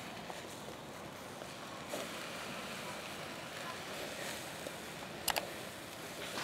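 Fish fillets sizzling in a wire grill basket over hot charcoal, a steady hiss. Two sharp clicks come just after five seconds in.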